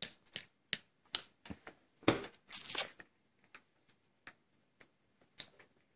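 Toddler's plastic fork tapping and scraping in a plastic bowl: a string of light, irregular clicks, with a louder, longer scrape about two seconds in.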